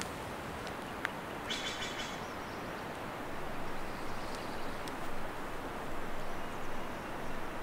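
Steady outdoor background hiss, with a short bird call about a second and a half in and a few faint ticks.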